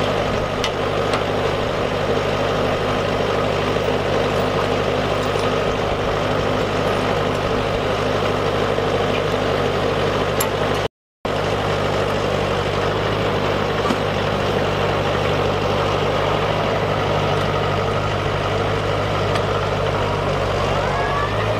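LS XR4040 compact tractor's three-cylinder diesel engine idling steadily, with a few faint clicks over it. The sound cuts out briefly about halfway, and a faint rising whine comes in near the end.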